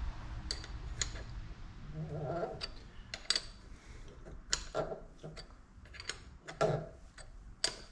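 Irregular metallic clicks and taps as a reusable hydraulic steering-hose fitting is screwed onto the hose by hand and with a wrench. A few short pitched sounds fall between the clicks.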